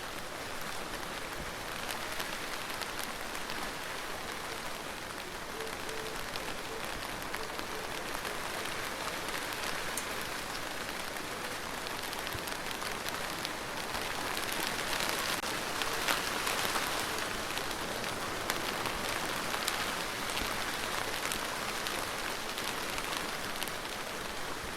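Steady rain falling, a dense hiss with the fine patter of individual drops, growing a little heavier about halfway through.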